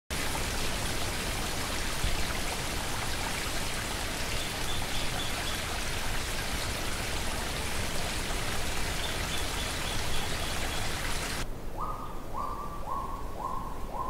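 A stream running over rocks: a steady rush of water, with a faint run of short, high bird notes twice. About three-quarters of the way through the water sound cuts away and a forest bird starts a series of whistled notes, about two a second, each a little lower in pitch.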